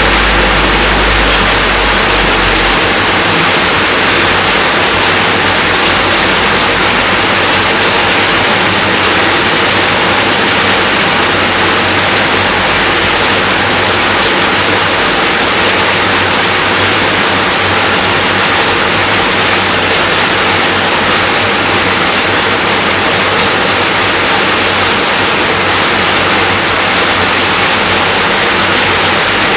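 Steady rainfall, a dense, even hiss. A low rumble underneath fades out about three seconds in.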